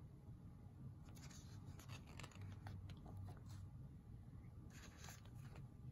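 Faint rustle and soft clicks of a picture book's paper page being turned and handled, over a near-silent room tone.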